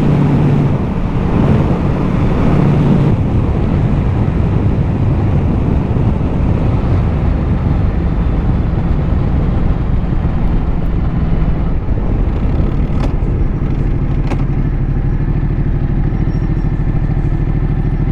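Ducati motorcycle running at road speed, with wind rushing over the microphone. The rushing eases after about three seconds while the steady engine note carries on.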